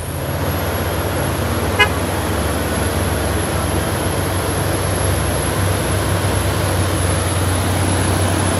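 Vehicle engine running steadily, with a short horn toot about two seconds in.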